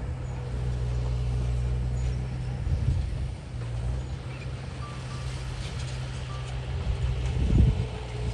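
Diesel engine of heavy earthmoving machinery running steadily, with a louder surge about three seconds in and a heavy thud near the end.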